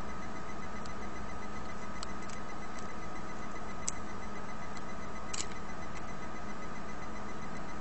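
Steady electrical hum and hiss, with a few faint, sharp clicks and taps scattered throughout from small parts of a Nexus One phone being handled during reassembly.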